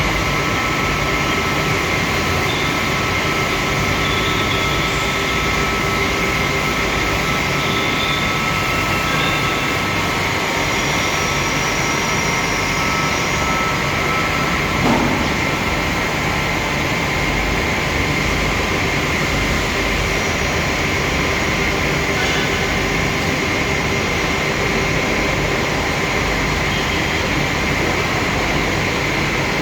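A machine running steadily: a loud, even noise with a steady high whine in it, and one short knock about halfway through.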